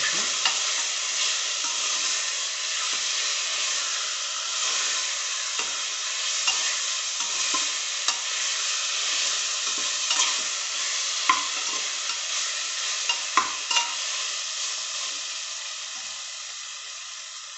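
Chicken pieces, onions and whole spices sizzling as they fry in oil in a pressure cooker, stirred with a steel spoon that scrapes and clicks against the pot now and then. The sizzle dies down near the end.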